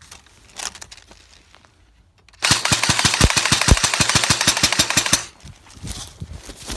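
Full-auto fire from an airsoft gun: one unbroken burst of rapid, evenly spaced shots, lasting nearly three seconds and starting about two and a half seconds in. Fainter single clicks come before and after it.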